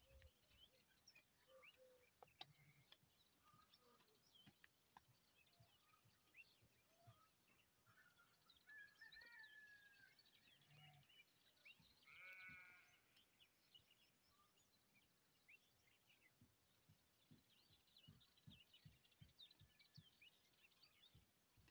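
Near silence in open country: faint bird chirps scattered throughout, and a single bleat about twelve seconds in.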